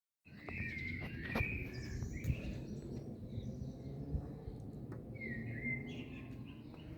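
Small birds calling in short chirping phrases, twice, over a steady low background rumble, with a few sharp clicks.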